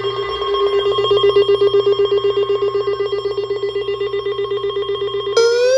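Electronic alert tone of an emergency warning: a steady, rapidly pulsing ring like a telephone bell. Near the end a siren-like wail starts and rises in pitch.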